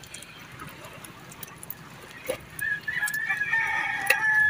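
A rooster crowing once, one long drawn-out call beginning a little past halfway, over light clicks from fish being picked out of a nylon gill net.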